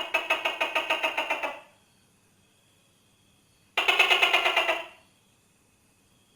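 Tokay gecko calling: two rapid rattling trills of about eight to nine pulses a second. The first lasts about a second and a half from the start, and the second, about a second long, comes about four seconds in.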